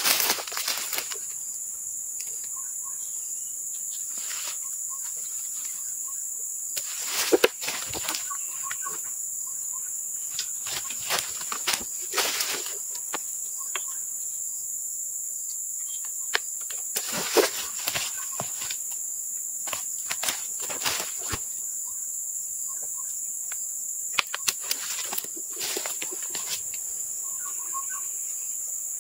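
Steady high-pitched drone of insects, with scattered short knocks and clicks from someone handling and measuring sawn timber, the loudest about 7 and 17 seconds in.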